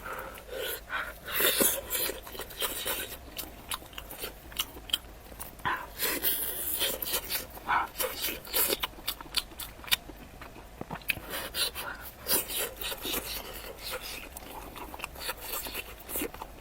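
Close-miked eating of braised pork knuckle over rice: wet chewing, biting and lip-smacking, with scattered irregular clicks.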